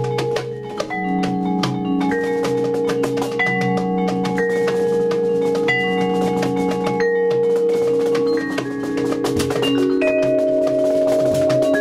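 Vibraphone played with yarn mallets in free improvisation, its notes ringing on and overlapping. Frequent light, dry percussion taps and clicks sound over it.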